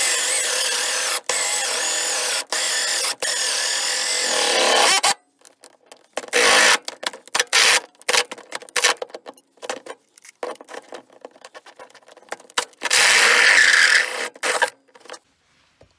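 A 64 mm cobalt hole saw on a Stanley 18-volt cordless drill cuts through a van floor of wood and metal. It runs in bursts: about five seconds almost without a stop, then shorter on-and-off runs of the drill.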